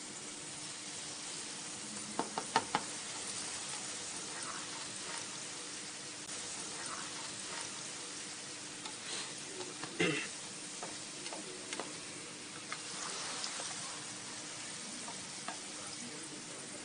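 Curry masala sizzling and bubbling in a kadai on a gas flame. A few sharp clicks come about two seconds in, and a louder knock about ten seconds in.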